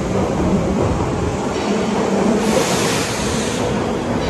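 Midosuji Line subway train rumbling through the underground station, with a burst of hiss about two and a half seconds in.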